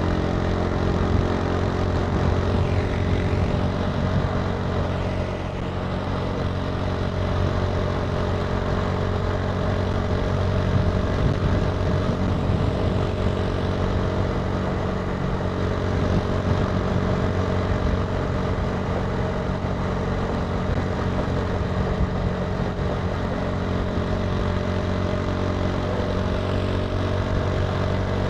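Italika TC300 motorcycle engine running at a steady pace while riding, its note holding even with no marked revving.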